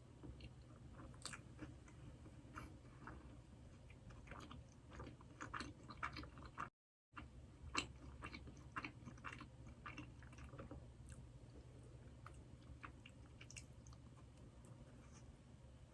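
Close-miked chewing of a Krispy Kreme doughnut: quiet, irregular mouth clicks and soft bites. The sound drops out completely for a moment about seven seconds in.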